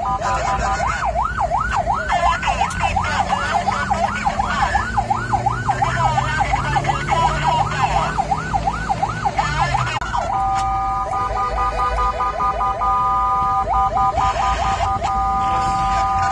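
Emergency vehicle siren in a fast yelp, sweeping up and down about three times a second. About ten seconds in it switches to a steady horn-like tone, broken twice by short yelp bursts. A vehicle engine revs up and eases off underneath.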